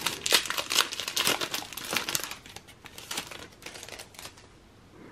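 A foil booster pack wrapper crinkling and rustling as it is worked open by hand and the cards are pulled out. The crinkling thins out after about three seconds to faint card handling.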